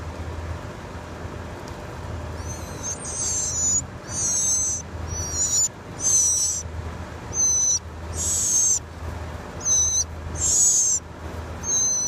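A brood of nestling birds begging for food: a run of about nine high, shrill begging calls, starting a couple of seconds in, over a low steady hum.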